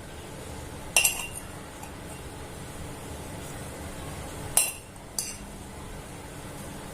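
A metal spoon clinking against a container while spice powders are spooned out: three light clinks, one about a second in and two close together near the end.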